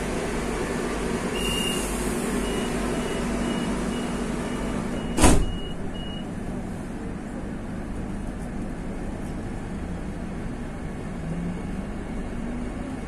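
Madrid Metro train doors closing: a high-pitched warning beeps rapidly, about two beeps a second for some five seconds, and the doors shut with a loud thump about five seconds in. Under it the train's steady hum runs on, with a low rising tone near the end.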